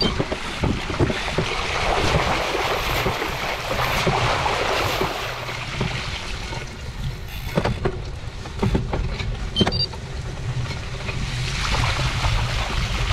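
Gravel bike tyres rolling and splashing through shallow standing water on a dirt road, with wind rumble on the microphone. A few sharp knocks sound in the second half.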